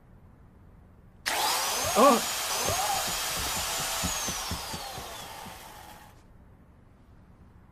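Chainsaw engine starting abruptly about a second in and running with a high whine, then winding down and cutting out a couple of seconds before the end. A short cry rises over it about two seconds in.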